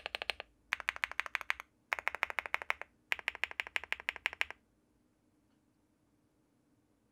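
Typing on a Leobog Hi75 mechanical keyboard with HMX Violet switches, a PC plate and PBT keycaps: quick runs of key clacks with short pauses between them. The typing stops about four and a half seconds in, leaving faint room tone.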